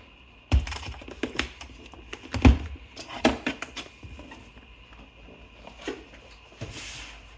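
Handling noise on a desk: several separate knocks and clicks as things are picked up and set down, the loudest about two and a half seconds in, with a short rustle near the end.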